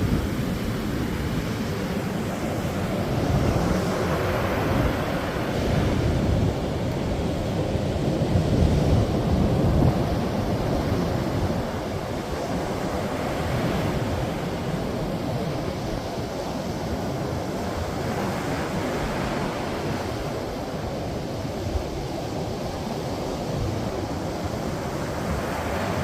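Ocean surf breaking on a beach: a continuous wash of waves that swells and eases every few seconds, with a low rumble underneath.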